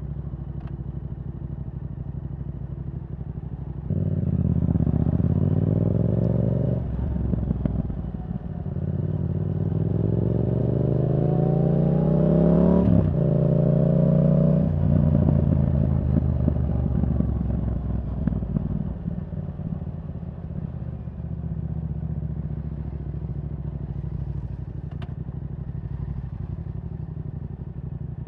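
Yamaha R7's 689 cc parallel-twin engine through a Yoshimura R77 exhaust, running low and steady, then opened up about four seconds in. The revs climb in two pulls, each cut off sharply by an upshift, and the engine then settles back to steady low running for the rest.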